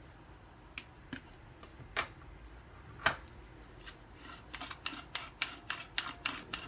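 A few separate sharp snips of kitchen scissors cutting green onion over a bowl, then a quick run of clicks from a hand-twisted spice grinder near the end.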